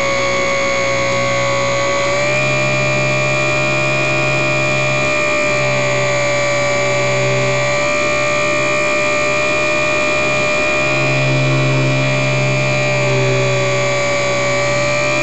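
Electric motor and propeller of a HobbyZone Super Cub RC plane in flight, a steady high whine heard from onboard with rushing air noise. The pitch steps up slightly about two seconds in and eases back down near the end as the throttle changes.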